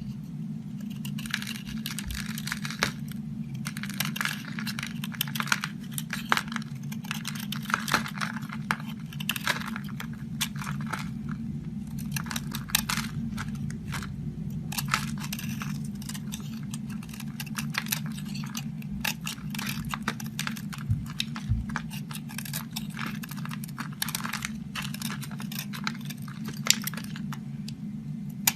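Knife cutting through dry soap: a continuous crisp crackling and scraping full of small sharp clicks, over a steady low hum.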